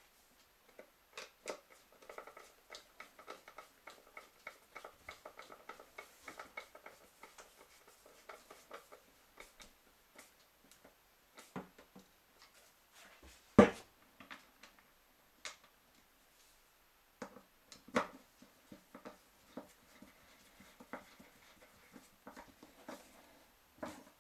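Light clicks, taps and knocks of plastic and metal parts as a baby stroller wheel's fork, bearing and axle bolt are fitted and worked with a screwdriver. For the first several seconds there is a quick even run of small clicks. After that come scattered single clicks, with one sharp knock about halfway through.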